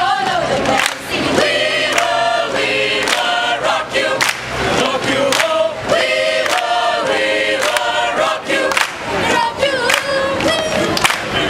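Mixed choir of young male and female voices singing together, with hand-claps keeping time.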